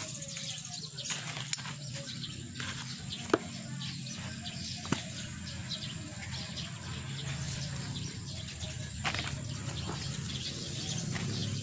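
A small hand cultivator scratching and raking through a dry potting mix of soil and carbonized rice hull in a plastic basin, a continuous gritty rustle, with two sharp knocks at about three and five seconds in.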